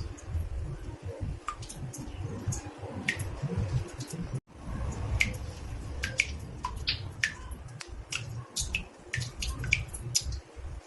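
Water drops falling into a bathtub: irregular plinks at different pitches, coming more often in the second half, over a low rumble. The sound cuts out for a split second about four seconds in.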